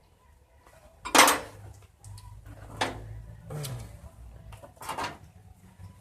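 Metal hand tools clanking against the engine while working loose the intake manifold bolts: a handful of sharp metallic clinks and knocks, the loudest about a second in.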